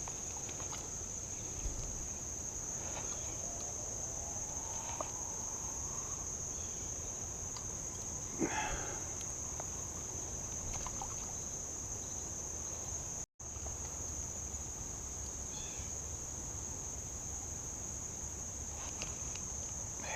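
Steady high-pitched chorus of insects, one continuous even drone, with a momentary break about two-thirds of the way through.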